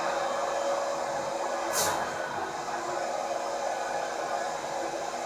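Allwin C512 large-format banner printer running while printing: a steady machine whir and hum with a few steady tones, and one brief hiss about two seconds in.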